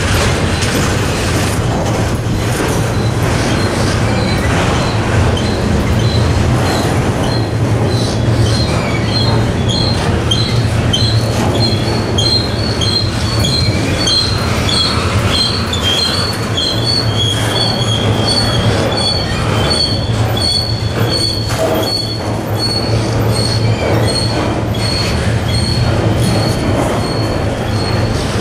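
Double-stack container well cars of a slow-moving freight train rolling past, with a steady low rumble and scattered wheel clicks. From about a third of the way in, a wheel squeals in a high tone that pulses at a regular beat, a bit over once a second.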